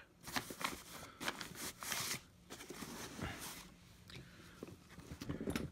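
Quiet rustling and crinkling of the folded wagon's nylon fabric cover, with small knocks of its frame, as it is handled by hand.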